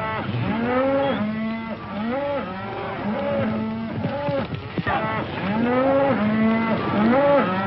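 A herd of cattle bawling and mooing, many calls overlapping one after another.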